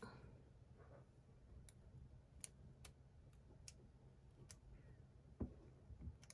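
Near silence with faint, scattered clicks of steel jewellery pliers' jaws on silver wire and against each other as a wire loop on a stone bead is pressed into shape, with one soft knock about five seconds in.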